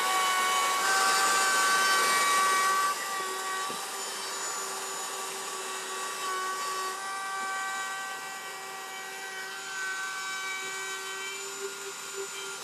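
Full-size router spinning a rabbeting bit and cutting a rabbet along the edge of a wooden panel: a steady high motor whine, loudest for about the first three seconds and then a little softer.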